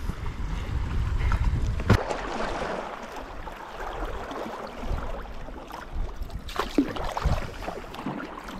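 Sea kayak under way in choppy sea: water splashing and rushing along the hull. Wind buffets the microphone with a low rumble for the first two seconds, until a sudden cut.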